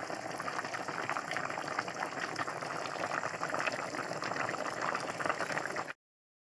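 Stainless steel pot of fish broth at a rolling boil, a dense crackle of bubbles popping; the sound cuts off abruptly near the end.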